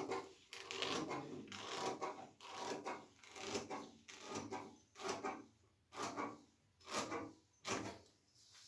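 Large scissors cutting through paper pattern sheet in a steady run of strokes, roughly one every two-thirds of a second. Each stroke is a crisp paper rustle, several ending in a sharp snip of the blades.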